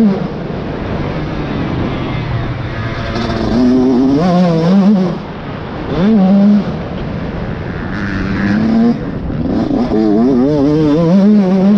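Motocross bike engine being ridden hard, revving up and dropping back again and again as the throttle is opened and closed. Twice, around four seconds in and again near the end, the pitch wavers quickly up and down. Wind rushes over the microphone throughout.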